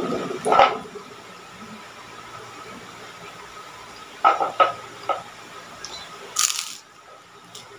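Close-miked eating sounds of a person eating rice and raw greens by hand: chewing and lip smacks heard as a few sharp clicks and short crackles, the longest about six and a half seconds in.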